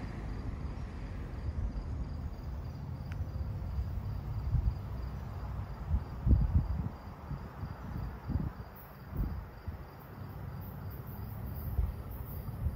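Insects chirping in a steady, evenly repeating high pulse, over low gusts of wind buffeting the microphone. The gusts are strongest about six seconds in.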